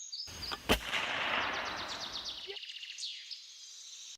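A single loud, sharp shot less than a second in, inside a burst of noise that cuts off abruptly about two and a half seconds in. Birds chirp faintly around it.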